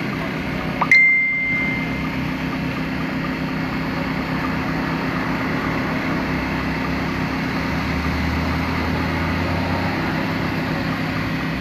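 An engine running steadily at an even idle. About a second in there is a sharp click and a short, high, ringing beep.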